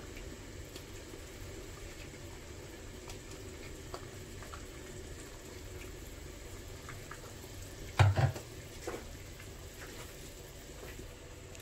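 Coconut fish curry bubbling at the boil in a clay pot on a gas flame, with a few light taps as fish pieces are tipped in, and one louder knock about eight seconds in.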